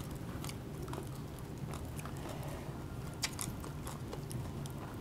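A person chewing and biting food close to the microphone, with a few light clicks.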